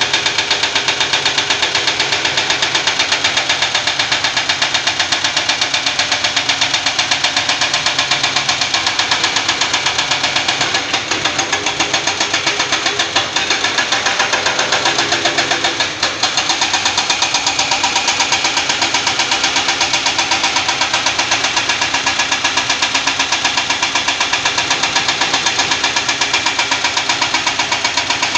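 Hydraulic excavators at work on rock: diesel engines running with a steady, rapid knocking.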